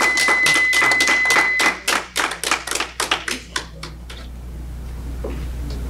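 An electronic speaking-time countdown timer sounds one steady high beep for the first couple of seconds, signalling that the speaker's time has run out. Over it, a few people clap; the clapping thins out and stops about four seconds in.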